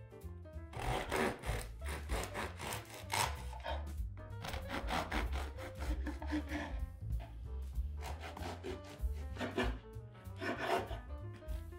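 A knife sawing through crusty bread on a wooden board, in three runs of quick rasping strokes, with background music.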